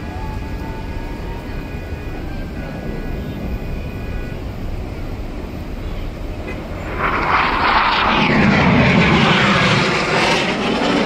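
Fixed-wing aircraft flying past overhead: a loud rushing engine noise swells about seven seconds in, peaks, and begins to fade near the end.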